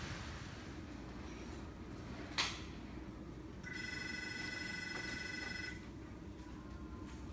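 A sharp click, then an electronic tone held steady for about two seconds over a low room hiss.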